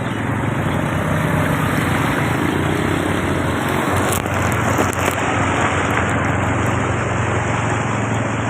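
Vehicle engine running while driving through a flooded street, with a steady rushing hiss of water over a low engine hum.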